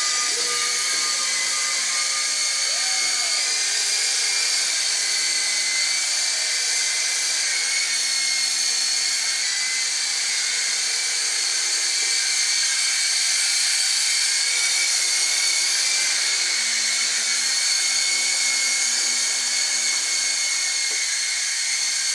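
SYMA S032 coaxial radio-controlled toy helicopter's small electric motors and rotors whirring in flight: a steady, high-pitched whine with only slight changes in pitch.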